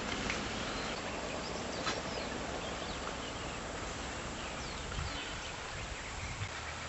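Steady outdoor background noise with scattered short, high chirps and a few faint knocks.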